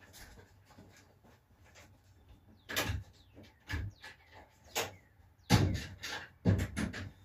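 A scattered series of short knocks and bumps, about a second apart at first and coming closer together near the end.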